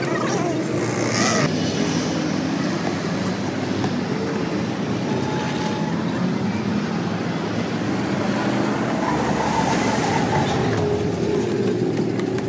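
Steady engine and traffic noise from motor vehicles, a continuous low running hum that wavers slightly in pitch.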